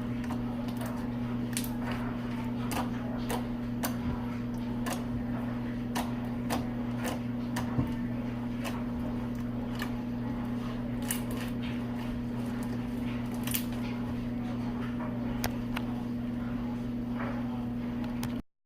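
A steady low hum with scattered light clicks and taps over it, cutting off abruptly near the end.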